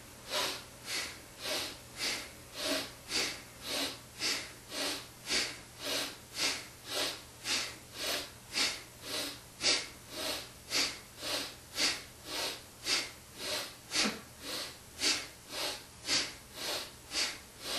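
A man breathing hard and rhythmically in time with a Kundalini yoga arm exercise, exhales and inhales alternating at about two breaths a second.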